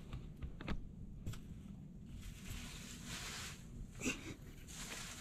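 Faint scuffs, footsteps and small knocks of a person climbing down over rock and dry leaves, with a short louder scrape about four seconds in.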